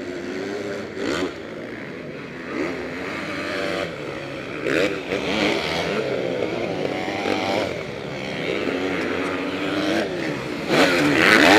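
Several motocross bikes' engines revving up and dropping back as they race around the dirt track, their pitches rising and falling over one another. The sound is loudest near the end as a bike passes close.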